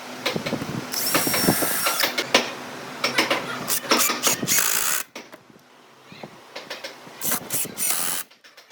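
A power tool running in short bursts, three times, with many sharp clicks and knocks between the bursts.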